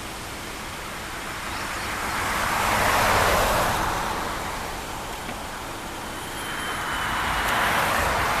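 Two vehicles passing on a road, their tyre and road noise swelling and fading away: the first about three seconds in, the second near the end.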